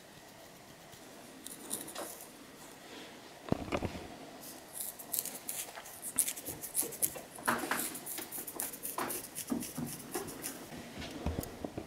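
Long fingernails scratching through hair on a dandruff-flaked scalp: faint at first, then a quick, irregular run of short dry scratching strokes from about three and a half seconds, starting with a low bump.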